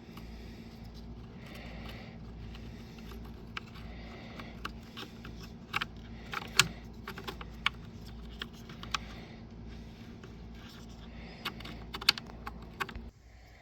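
Scattered sharp clicks and taps of small plastic and metal primer-knob parts being handled and fitted together by hand, loudest about halfway through and again near the end, over a steady low hum that cuts off near the end.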